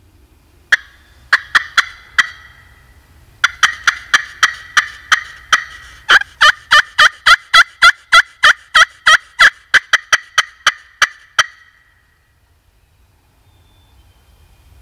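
Turkey call imitating a hen, sounded close by: a few sharp cutts, then a long run of about three quick yelps and cutts a second, loudest in the middle, stopping about eleven seconds in. It is hen calling meant to make a gobbler answer.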